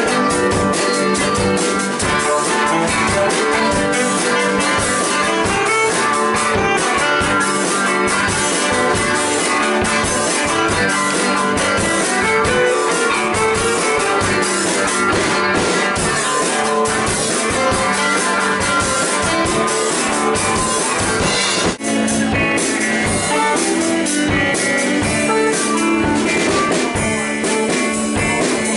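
A small live band playing amplified music: electric guitars, a drum kit and a saxophone. The music breaks off for an instant about two-thirds of the way through and carries straight on.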